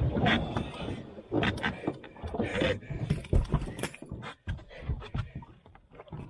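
Irregular knocks and thumps, with a few brief voice sounds in between.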